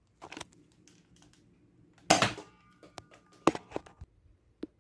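Nerf foam-dart blaster, clicking plastic as it is handled and fired: a click, a loud snap about two seconds in, then a quick cluster of sharp clicks and one more near the end.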